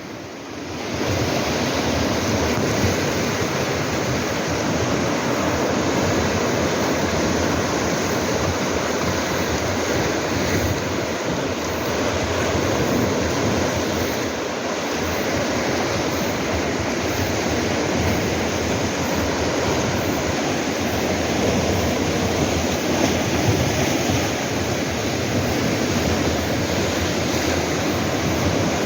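Sea waves washing and breaking against shoreline rocks, a steady rushing surf that fades in over the first second.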